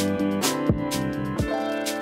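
Instrumental background music with a steady drum beat under sustained chords.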